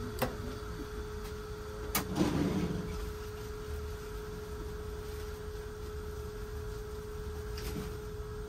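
Steady hum of running bench equipment, with a sharp click near the start, another about two seconds in followed by a short shuffling noise, and a louder click at the end.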